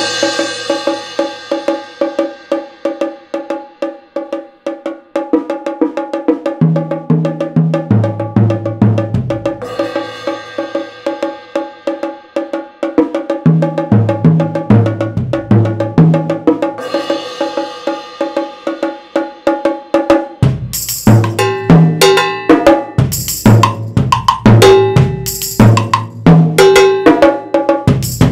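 Multiple-percussion setup of drums, bongos and a suspended cymbal played with drumsticks in fast, busy patterns. Cymbal crashes ring out about ten and seventeen seconds in, and the playing gets louder and denser with sharper strokes from about twenty seconds in.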